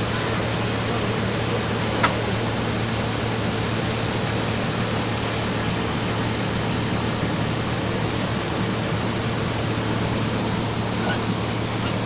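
Passenger boat's engine running steadily underway, a constant low hum mixed with water and wind noise. One sharp click about two seconds in.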